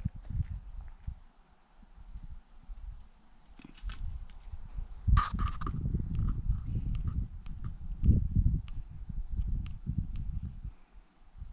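A cricket chirping steadily in a high, evenly pulsed note, with wind buffeting the microphone in low gusts and a single sharp click about five seconds in.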